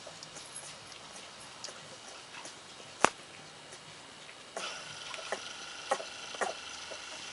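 Thirteen-day-old golden retriever puppies shuffling about, with small scattered ticks and taps and one sharp click about three seconds in. In the second half a steady high whine sets in and a few short puppy squeaks come through.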